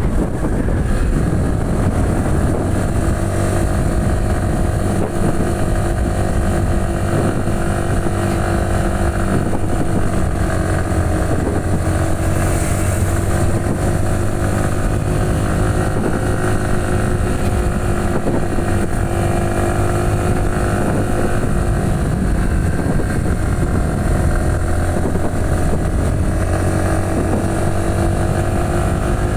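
Yamaha WR155's single-cylinder four-stroke engine running steadily while the bike is ridden, its pitch rising and falling gently, with wind on the microphone.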